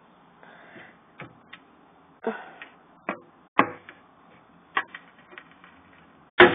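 Live locusts hopping and knocking against a plastic tub: scattered short, sharp clicks and taps at uneven intervals, with one louder knock near the end.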